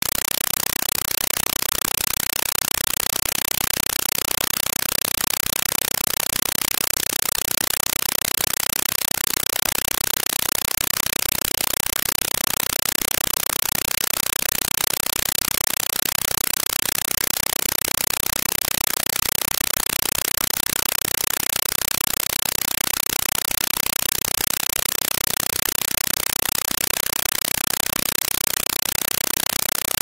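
Steady, even hiss, strongest in the high frequencies, like recorder or microphone self-noise; no engine, voice or other distinct sound stands out.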